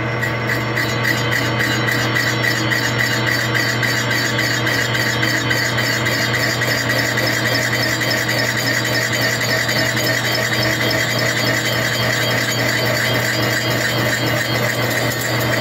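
Metal lathe running with an aftermarket Husqvarna 372XP chainsaw cylinder spinning in the chuck while a very light cut (a tenth of a thousandth) is taken on the squish band: a steady motor and gear hum with a fast, even ticking, about four a second.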